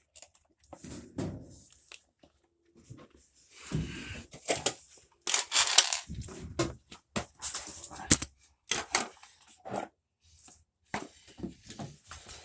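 Irregular clicks, scrapes and rattles of hands and tools working on washer parts, busiest in the middle.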